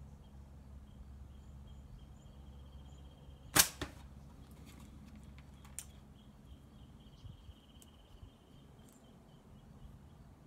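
Slingshot shot: the Theraband Gold flat bands of a pickle-fork slingshot snap forward with one sharp crack as a 3/8-inch steel ball is released, and a fainter knock follows about a quarter second later as the ball reaches the catch box downrange.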